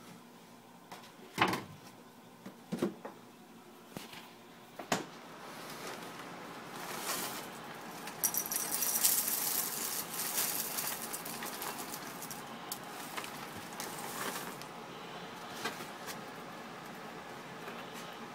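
A few sharp knocks as a plastic milk jug and a cereal box are set down on a stone counter, then bran flake cereal pouring from its box into a ceramic bowl: a dense rattling rush that lasts a few seconds and then thins out.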